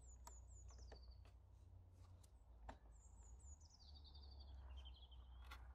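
Faint songbird singing: two descending runs of high chirps, a short one near the start and a longer one from about three seconds in. A few faint clicks are scattered through.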